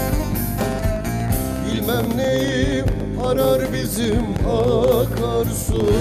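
Man singing a Turkish folk song (türkü) in a wavering, ornamented voice, accompanied by a bağlama (long-necked saz).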